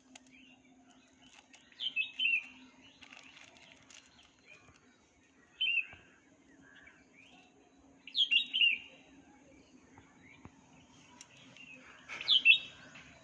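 A pet bird chirping in four short bursts of a few quick, falling notes, over a faint steady low hum.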